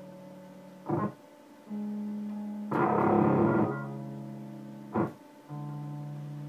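Electric bass played through effects pedals: held low notes that shift pitch every second or two, cut by short noisy bursts about a second in, around three seconds in and near the end.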